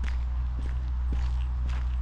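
Footsteps walking at a steady pace, about two steps a second, over a steady low rumble.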